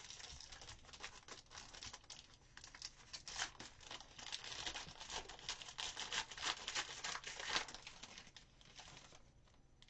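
Plastic trading-card pack wrapper being torn open and crinkled by hand: a dense run of crackles that thins out near the end.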